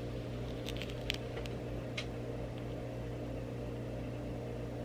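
Steady low machine hum, with a few light clicks about a second in and another at two seconds.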